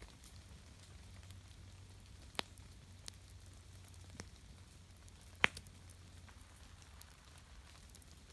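Quiet outdoor ambience: a low steady rumble with four sharp clicks scattered through it, the loudest about five and a half seconds in.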